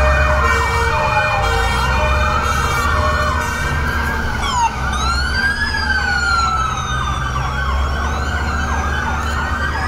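Several fire engine sirens wailing together, their rising and falling pitches overlapping out of step, over a steady low engine rumble. A two-note siren alternates between two pitches during the first few seconds.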